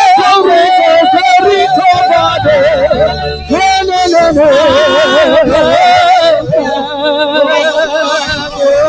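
Worship singing: a voice holds long, drawn-out notes with a wide, heavy vibrato, over steady musical accompaniment.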